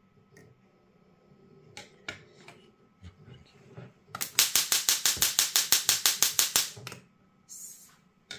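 Small Bluetooth music Tesla coil firing arcs from its discharge needle: a rapid, even train of sharp electric snaps, about seven a second, lasting nearly three seconds from about four seconds in. It is followed by a brief hiss.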